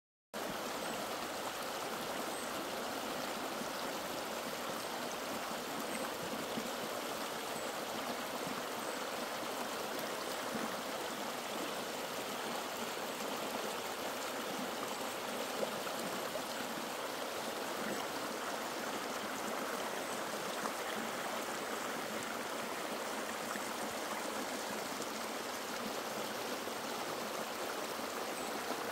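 Shallow rocky forest stream flowing over stones: a steady rush and babble of water, cutting in suddenly just after the start.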